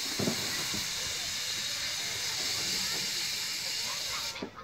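Steam locomotive venting steam in a steady hiss that stops abruptly near the end, with a low thud just after the start.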